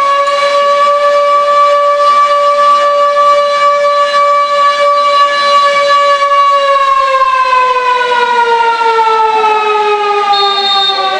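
Siren sounding after a goal in a roller hockey hall: one loud held wail that holds steady, then slides slowly down in pitch over the last few seconds.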